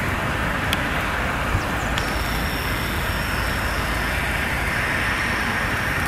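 Steady outdoor background rumble and hiss, with a faint, steady high whine joining in about two seconds in.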